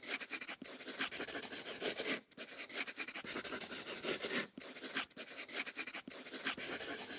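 Pen scratching across paper in long strokes, broken by several brief pauses between strokes.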